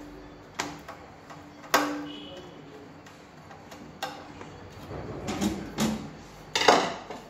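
Sheet-steel side panel of an inverter cabinet being pushed into place and a screwdriver working at its screw: about six sharp metallic knocks and clicks, one ringing briefly, the loudest a clatter near the end.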